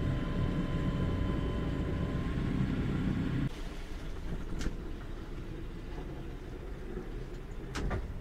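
A sailing yacht's inboard engine running with a low rumble and a faint whine, slowing as the boat comes alongside. About three and a half seconds in the rumble drops away sharply, and two faint clicks follow.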